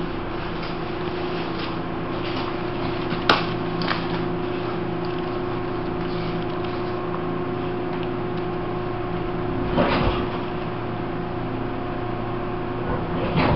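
Taiwan Railways E1000 push-pull Tze-Chiang express train: a steady hum with several steady whine tones over running noise. A sharp click comes about three seconds in, and brief rattling knocks come near ten seconds and near the end.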